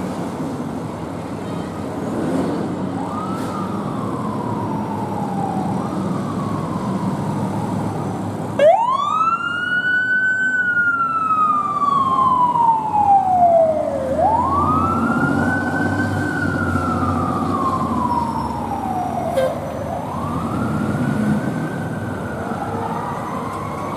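Fire engine siren: a faint wail at first, then from about a third of the way in it winds up quickly and falls away slowly over about five seconds, three times in a row, over the rumble of the truck's engine.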